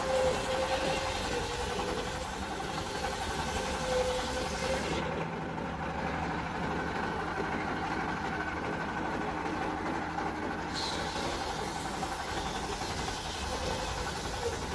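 Circular saw machine running steadily with a continuous mechanical drone and a faint wavering whine.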